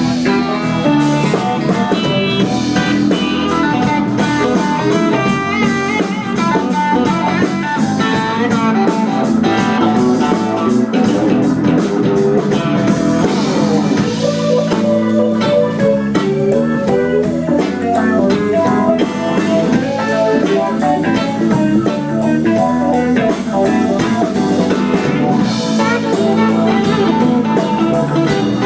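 Live blues-rock band playing an instrumental break: guitar to the fore over drum kit, with no singing.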